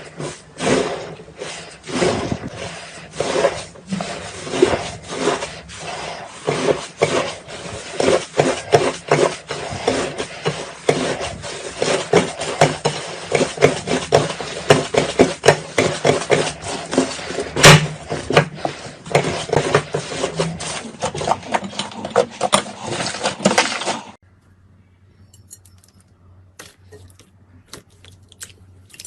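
Crunchy slime crackling and popping in a dense, uneven run of clicks as it is pressed and worked. About 24 seconds in it cuts off suddenly to a much quieter stretch with only scattered faint clicks.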